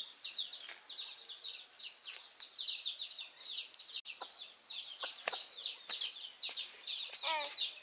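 Small birds chirping, many quick high chirps overlapping one another, with scattered light clicks; near the end a lower call of several quick falling notes.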